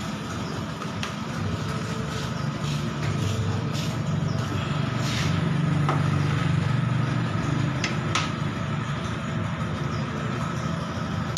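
A low engine hum that swells for a few seconds in the middle and then eases off, with a few light clicks of hand tools working on a scooter's radiator fittings.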